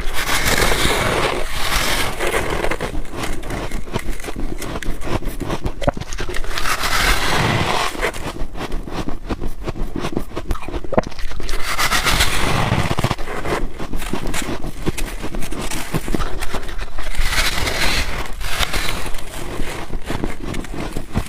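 Close-up biting and chewing of white freezer frost: a steady, dense crunching crackle, growing louder in spells about every five seconds.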